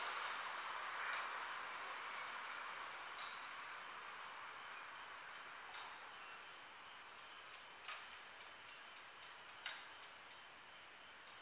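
Crickets chirping in a steady, rapidly pulsing high trill, over a faint hiss that fades away during the first few seconds. Two faint clicks come near the end.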